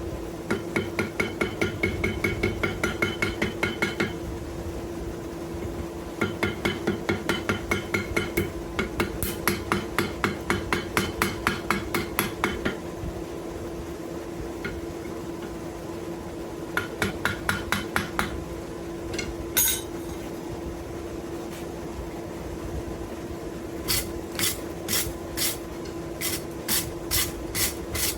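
Hand hammer beating hot wrought iron on an anvil in quick runs of blows, about four to five a second, with pauses between; near the end the strikes slow to about two a second and ring brighter. The hammering is working to close a small split in the wrought iron. A steady hum runs underneath.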